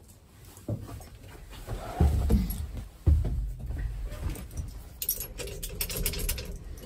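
Someone climbing into a pickup cab, with handling and rustling noise. Two dull, heavy thumps come about two and three seconds in, and keys jangle near the end.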